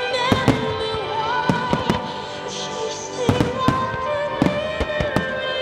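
Aerial firework shells bursting in a rapid, irregular series of sharp cracks, about ten in a few seconds. They go off over loud music carrying a wavering sung melody.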